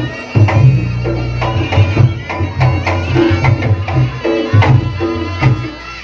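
Reog Ponorogo gamelan accompaniment: kendang drums beating a quick, rhythmic pattern with deep booming strokes, under a high, wavering melody line.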